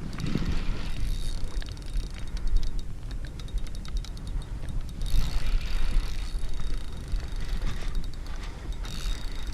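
Spinning fishing reel clicking in quick, fine ticks under the load of a big stingray on the line, over a low rumble of wind on the microphone.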